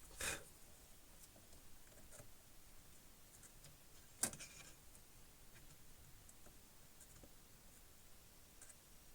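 Near silence with faint handling ticks: a brief scrape just after the start and one sharp click about four seconds in.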